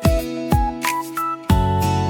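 Background music: held melody notes over a bass line, with drum thumps.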